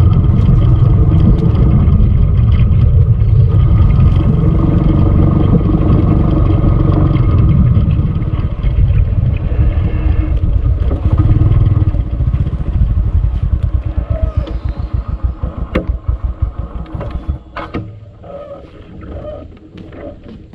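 Small motorcycle engine running under way, with heavy wind rumble on the handlebar-mounted microphone. About eight seconds in the sound turns uneven, and in the last few seconds it drops to a slower pulsing, with a few sharp knocks, as the bike slows to a stop.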